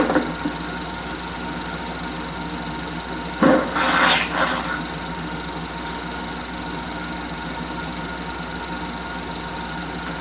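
16mm Telex sound projector running, a steady mechanical whirr and clatter from the motor and film transport under the film's soundtrack hum. About three and a half seconds in, a short loud burst comes from the soundtrack.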